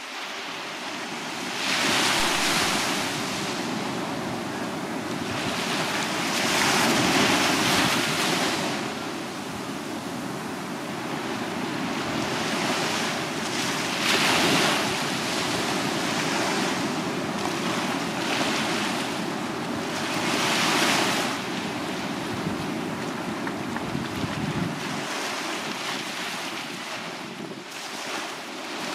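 Small waves breaking and washing up a sandy beach, with four louder washes several seconds apart. Under them is a low rumble of wind on the microphone that dies away near the end.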